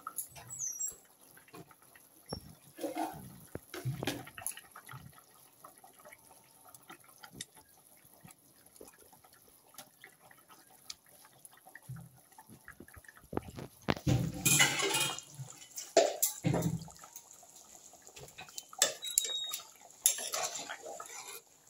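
Fish pieces being dropped one at a time into a simmering curry in a metal kadai, with small wet splashes. Near the end, a spatula stirring and scraping in the pan.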